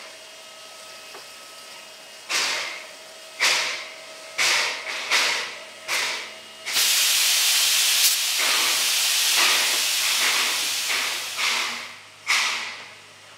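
Beyer-Garratt steam locomotive getting under way with slow, sharp exhaust chuffs about a second apart. About halfway through, a loud sustained hiss of steam takes over for several seconds with the chuffs still pulsing through it, and separate chuffs return near the end.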